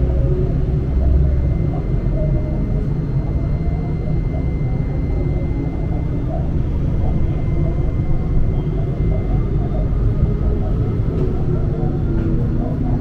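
A tram running along its line, heard from inside: a steady low rumble with a faint whine that slowly rises in pitch near the end as it gathers speed.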